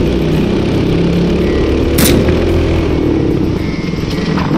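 Racing kart engine running at speed, with one sharp knock about two seconds in.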